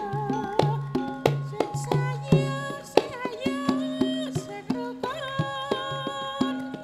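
Javanese gamelan ensemble playing karawitan: bronze metallophones and kettle-gongs ring out in sustained notes over regular hand-drum strokes. About three seconds in, singers' voices join with a wavering, gliding melodic line.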